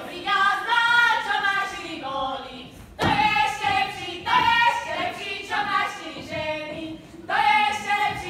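A group of women singing a Slovak folk song in unison, without instruments, in phrases with short breaks about 3 and 7 seconds in.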